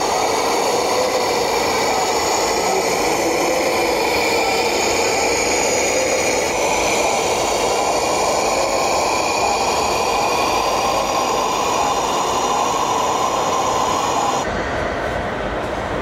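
Steady whine of small electric motors and gears, with wavering tones, over a dense noise. The sound changes abruptly about fourteen and a half seconds in.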